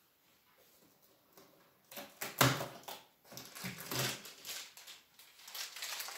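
Rustles and light knocks of handling as a small item is taken out of a cardboard advent calendar, starting about two seconds in, with a few short low sounds among them.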